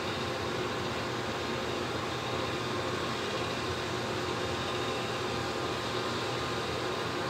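NuTone ceiling exhaust fan running steadily: an even rush of air with a faint steady hum.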